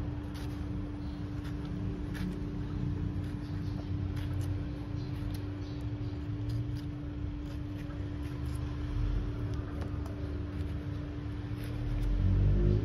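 A steady mechanical hum over a low rumble, from an unseen motor or engine, with the rumble swelling near the end. Faint clicks and scrapes of a kitchen knife paring pineapple skin sit on top.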